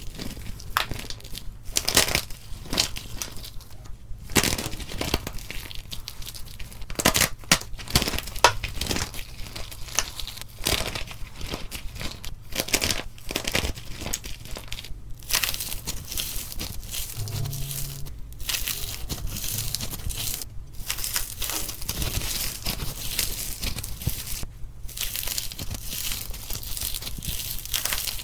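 A dry, crumbly block being crushed and crumbled: dense, irregular crackling and crunching, with a few short pauses.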